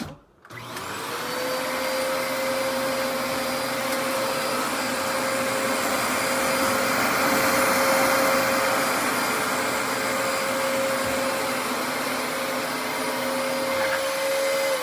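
Dyson DC33 upright vacuum cleaner switched on with a click, its motor rising to speed within the first second, then running with a steady whine as it vacuums shredded paper off carpet.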